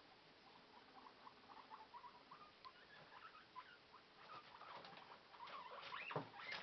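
Guinea pigs scurrying over cage bedding and squeaking in short, repeated squeaks during a bout of play. The sound gets louder and busier about four seconds in, with more scuffling.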